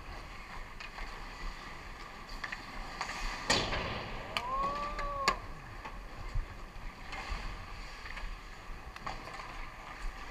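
Ice hockey play in a rink: skates scraping the ice and sticks and puck clacking, with a loud knock about three and a half seconds in. A drawn-out shout, rising then falling in pitch, follows about a second later.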